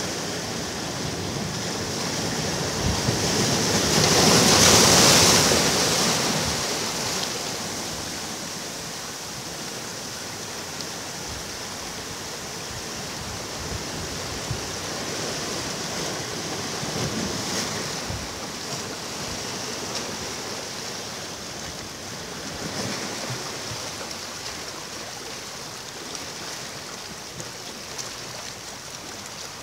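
Sea waves breaking and washing up a beach. One wave breaks loudly about four to six seconds in, then smaller swells of surf follow.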